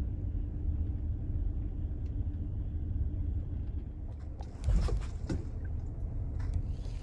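Steady low rumble of a car's road and engine noise heard from inside the cabin, with a few sharp knocks about two-thirds of the way through.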